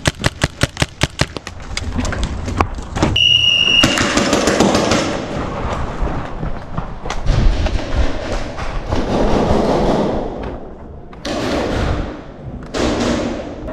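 Paintball marker firing a rapid string of about ten shots in a second and a half, followed by rushing noise.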